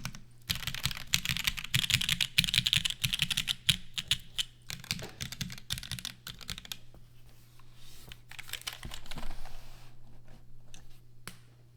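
TGR Jane V2 mechanical keyboard with Gateron Ink linear switches on a carbon-fibre plate being typed on: fast, continuous typing for about four seconds, then slower, scattered keystrokes, a short flurry about nine seconds in, and a few single key presses near the end.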